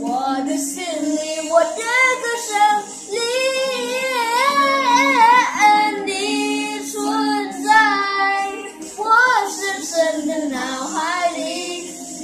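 A boy singing a Mandarin pop ballad, holding long notes that glide and waver in pitch, with short breaks between phrases.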